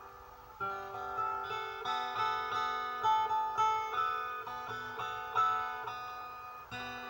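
Viola, a guitar-type acoustic string instrument, plucked note by note in a slow melody with a few strums. It starts after a short pause, with new notes about once or twice a second, each ringing out and fading.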